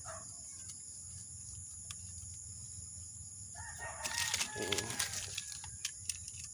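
A rooster crows once, starting about four seconds in and lasting about two seconds, the loudest sound here. A few faint ticks can be heard before it.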